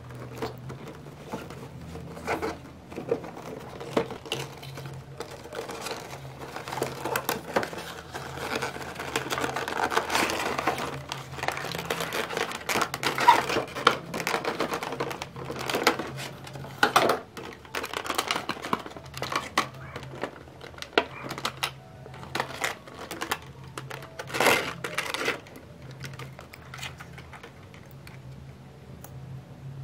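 Clear plastic packaging and a cardboard box being handled as a diecast model car is unpacked: crinkling and rustling plastic with many sharp clicks and snaps, busiest through the middle stretch.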